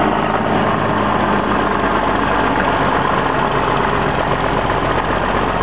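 1952 White WC28 wrecker's engine running steadily at low speed as the heavy tow truck moves past.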